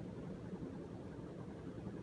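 Hunter Perspective three-blade ceiling fan with an Air Max motor running on high speed: a steady rush of moving air.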